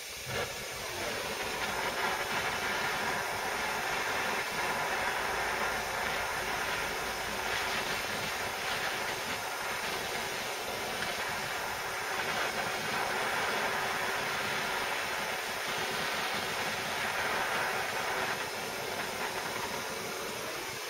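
Handheld gas blowtorch burning with a steady hiss, coming on about half a second in.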